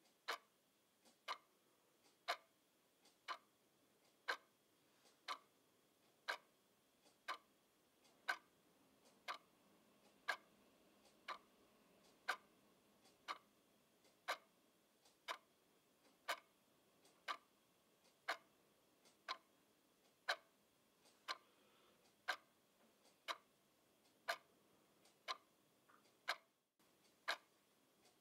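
Quartz twin-bell alarm clock ticking about once a second, its second hand stepping, with a few fainter clicks between the ticks. The sound cuts out for a moment near the end.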